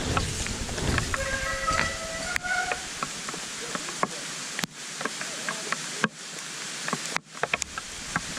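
Mountain bike being ridden down a muddy woodland trail: rattling and knocking from the bike over rough ground, with wind on the microphone and a brief high squeal in the first few seconds, typical of disc brakes.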